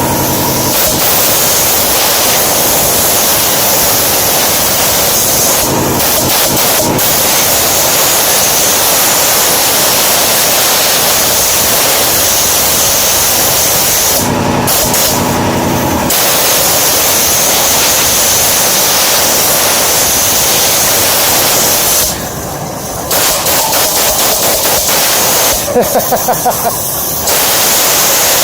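Compressed air hissing loudly and steadily from an air compressor's hose, turned down to low pressure. The blast stops briefly a couple of times, and near the end it comes in a few short spurts.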